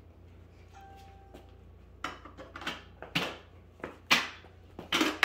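A short steady beep about a second in, then a run of sharp plastic knocks and clatter from a toddler handling a plastic toy train, about eight hits, the loudest in the last two seconds.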